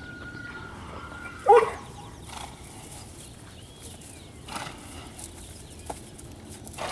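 A mare and her week-old foal moving about on grass, with a single short, loud animal call about a second and a half in, a few soft puffs of noise after it, and faint bird chirps.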